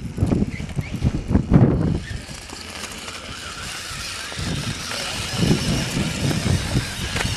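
Brushless electric RC rock crawler climbing rock, its motor and gears giving a faint steady whine. Irregular low rumbling thumps sit over it in the first two seconds and again from about halfway through.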